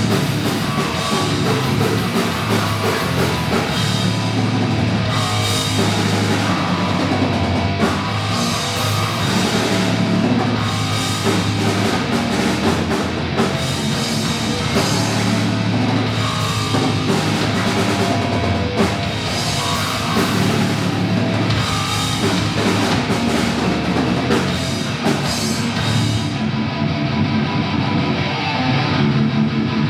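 Thrash metal band playing live: distorted electric guitars, bass and a full drum kit with cymbals. Near the end the drums and cymbals drop out, leaving the guitar ringing on.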